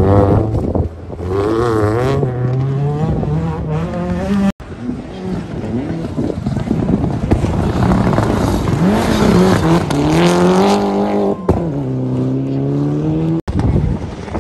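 Rally car engines revving hard on loose gravel, the pitch climbing under full throttle and dropping back at lift-off and gear changes. It comes in three separate shots of different cars.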